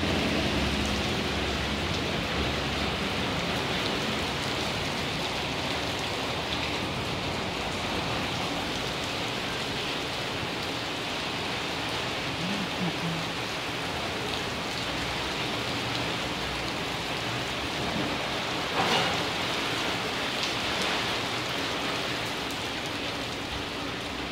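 Steady rain falling on wet concrete pavement, an even hiss of drops splashing, with one brief louder knock about three-quarters of the way through.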